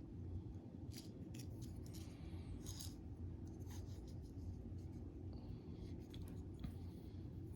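Faint small clicks and scraping from handling tiny lock pins in a plastic door-lock cylinder while reloading it, over a steady low hum.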